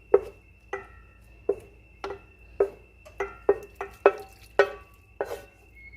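A cooking utensil knocking and scraping against a pan and bowl while sautéed peppers and onions are scooped out, about a dozen sharp knocks with a short ring, roughly two a second. A faint steady high tone runs underneath.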